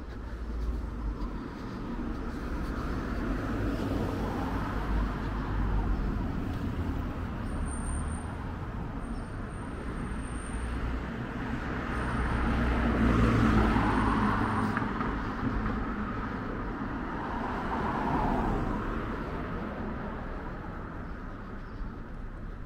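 Road traffic on a town street: cars passing, the loudest swelling past about halfway through and another a few seconds later.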